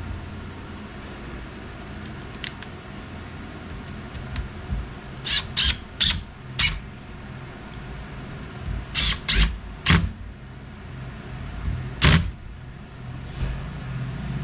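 Short sharp metallic clicks and scrapes, handling noise from fitting screws and the end cap back onto a small electric actuator motor, coming in small clusters over a steady low hum.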